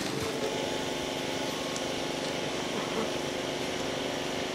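Brabus 800 C63 S AMG's 4.0-litre twin-turbo V8 idling steadily.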